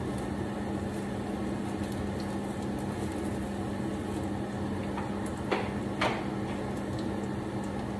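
Leftover chicken frying in a pan under a splatter guard: a steady sizzle over a low steady hum, with two short clicks a little past halfway.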